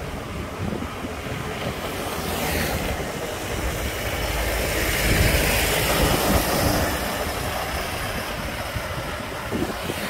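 Mahindra Bolero SUV overtaking close alongside: its engine and tyre noise swell to a peak about halfway through and then fade, over steady road and wind noise.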